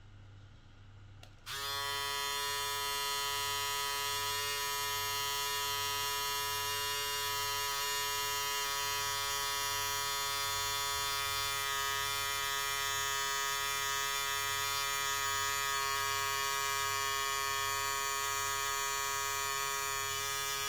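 Kemei 1123 electric foil shaver switched on about a second and a half in, running with a steady, unchanging buzz, and switched off right at the end. A phone RPM-gauge app held beside it reads about 8,300 to 8,500 rpm from the running shaver.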